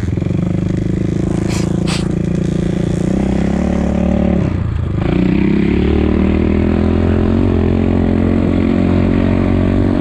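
Enduro motorcycle engine running steadily under way. About four to five seconds in the revs briefly drop, then it pulls steadily again. A couple of short clatters come near the start.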